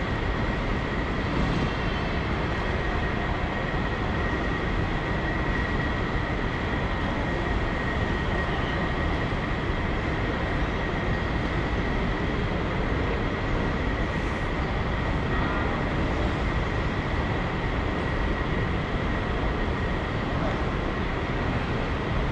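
Steady mechanical rumble and hiss at an even level, with a faint high whine.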